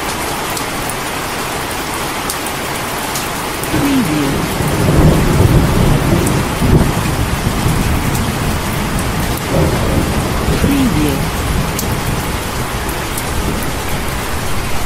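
Heavy rain falling steadily, with a long rumble of thunder that rolls in about four seconds in, is loudest a second or two later, then slowly dies away under the rain.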